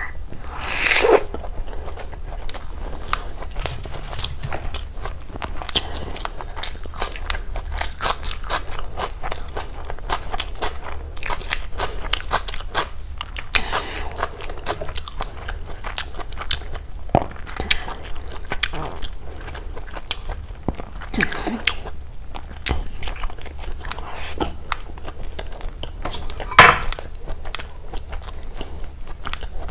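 Close-miked eating: steady chewing with many small crackling, crunchy mouth sounds. Louder crunchy bites come about a second in and near the end.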